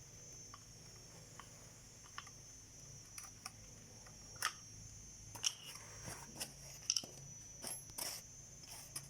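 Scattered small clicks and knocks of Colt M4 .22 LR rifle parts being handled and worked during disassembly, coming more often after about three seconds, over a faint steady high whine.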